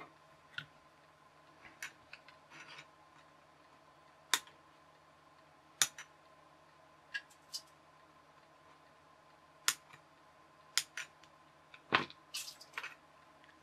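Side cutters snipping the excess leads of freshly soldered components on a circuit board: about a dozen sharp, short clicks at uneven intervals.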